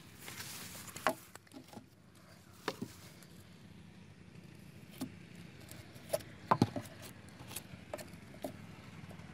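Scattered light knocks and clicks of hand tools and parts being handled at a workbench, about ten in all, with the loudest cluster a little past the middle, over a low steady hum.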